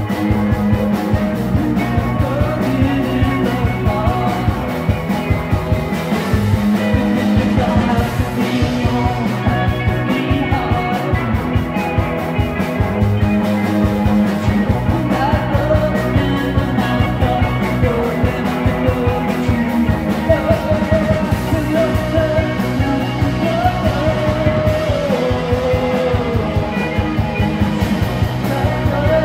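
Live rock band playing loud: electric guitar, bass guitar and a driving drum beat, with a singer's voice over them.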